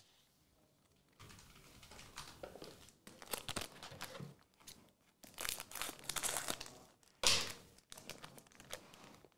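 Foil trading-card pack wrapper crinkling and tearing as it is handled and ripped open. It comes in irregular bursts after about a second of quiet, with the loudest sharp rip about seven seconds in.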